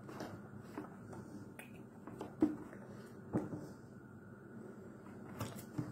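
Hands signing close to the microphone: a few irregular soft slaps and taps of hand against hand or body, the loudest about two and a half and three and a half seconds in, over a faint steady room hum.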